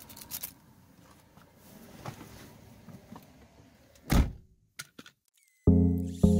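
Faint rustling and small clicks, then a car door shut with one heavy thump about four seconds in. Near the end, music begins: a few struck notes that ring and fade.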